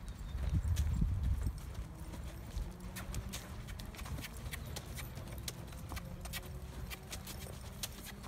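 A horse loping on arena sand: its hoofbeats come as an uneven run of soft thuds and light clicks over a low steady rumble.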